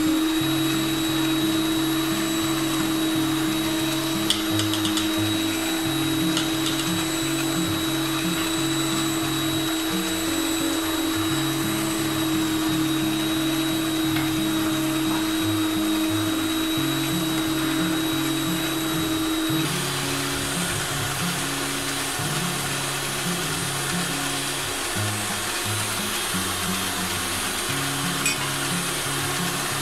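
Electric stand mixer running steadily, its beaters whisking oil and sugar in a steel bowl; the motor's pitch steps down a little about twenty seconds in.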